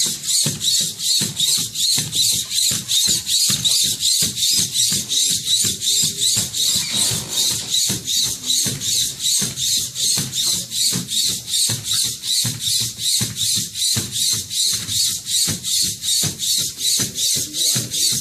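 Background music with a steady, quick beat, about three beats a second.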